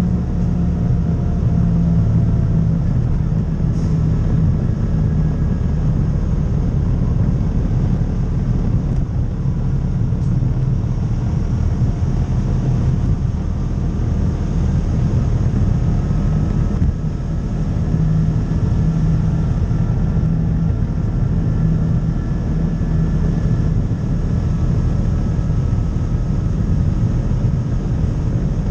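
Side-by-side UTV's engine running steadily at trail speed, with a faint whine that drifts slowly in pitch, tyres rolling over gravel, and a few light ticks.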